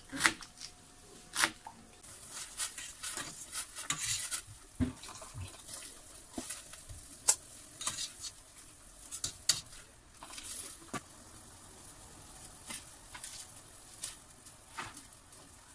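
A kitchen knife chopping onion against a cutting board, with a couple of sharp knocks in the first two seconds. Then a metal spoon stirring and clinking in a steel pot of simmering liquid with ground meat, with scattered clinks of utensils and pot.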